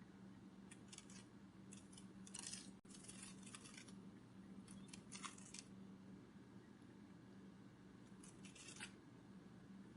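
Butterfly-wing flutter sound effect: faint, soft rustling strokes in short clusters, repeating several times over a steady low hum.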